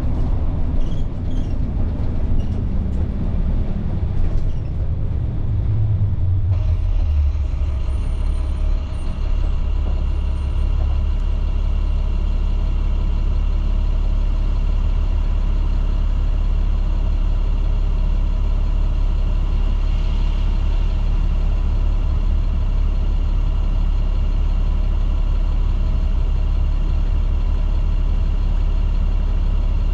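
A 2010 IC CE300 school bus's MaxxForce DT diesel running, its note falling over the first few seconds, then settling into a steady low drone. About six seconds in, the sound turns abruptly dull and muffled.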